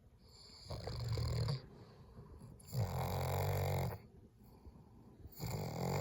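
Dog growling low in three long rumbles, each about a second long, roughly two seconds apart: an uneasy dog reacting to fireworks.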